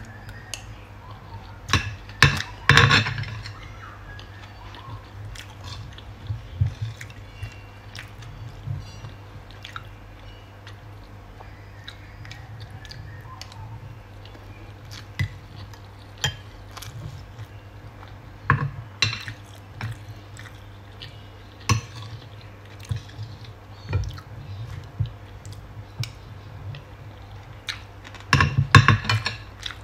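Close-up eating sounds: a person chewing mouthfuls of rice and smoked fish, with a metal spoon clicking and scraping on a plate. The loudest spoon scrapes come a few seconds in and again near the end, over a steady low hum.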